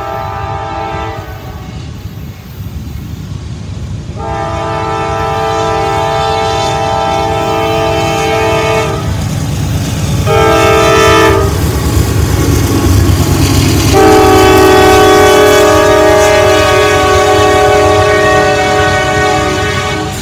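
CSX diesel locomotive's multi-chime air horn sounding the long-long-short-long grade-crossing warning as the train approaches and passes: the tail of one long blast, a long blast, a short blast, then a final long blast. Under it the locomotive's engine and the wheels on the rails rumble, growing louder as it comes by.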